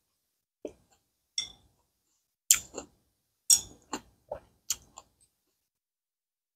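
Plastic chopsticks clicking and scraping against a ceramic plate while eating, a handful of short sharp clicks at uneven intervals, the loudest two about two and a half and three and a half seconds in.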